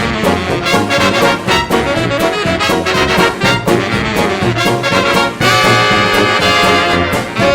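Vintage 1920s-style dance band music: an instrumental passage led by trombone and trumpet over a steady beat, ending on a long held brass chord.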